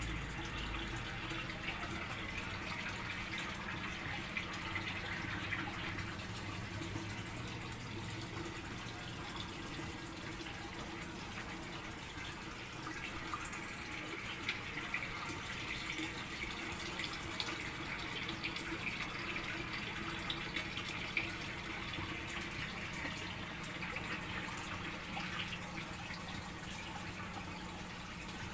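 Water running steadily into an aquarium with small drips and splashes, as the tank is refilled during a water change.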